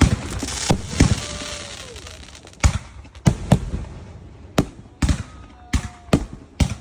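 2.5-inch-bore multi-shot firework cake firing: sharp bangs at irregular intervals, about ten in all, some in quick pairs. A hiss fades away over the first couple of seconds.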